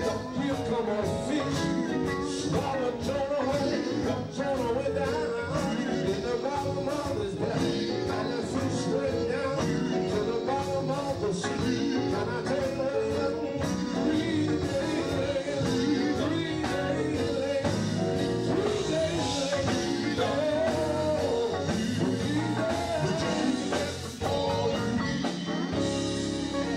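Live gospel group singing into microphones over a full band: electric bass, keyboard, drum kit and electric guitars, amplified through a PA system.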